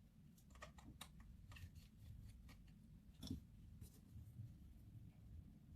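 Faint small clicks and ticks of a precision screwdriver working tiny screws out of a compact camera's internal bracket, with one sharper click a little past halfway.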